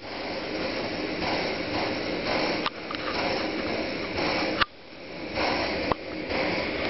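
Homemade pressurised petrol stove with a Shmel-2 burner bell and silent cap, burning with a steady rushing noise. Twice it briefly drops away with a click, about midway and again about two-thirds in, then swells back.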